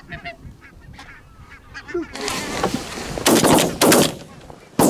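Barnacle geese honking as a flock comes in over the decoys. In the last two seconds come three loud shotgun shots, about half a second to a second apart.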